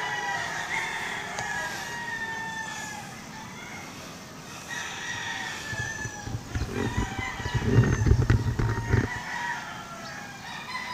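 Rooster crowing several times, one cock-a-doodle-doo after another. A louder low rumble comes in past the middle and lasts about two and a half seconds.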